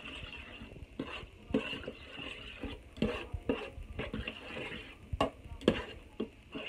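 A spoon stirring thick chili of ground beef and beans in a crock pot, with wet squelching and uneven knocks of the spoon against the pot, about two a second. The loudest two knocks come a little after five seconds in.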